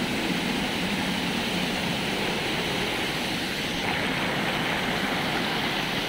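A small waterfall: water pouring over a rock ledge and crashing onto rocks just below, a steady rushing.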